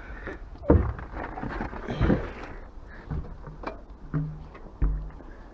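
A few separate knocks and clatters of things being handled, about a second apart, over rustling background noise.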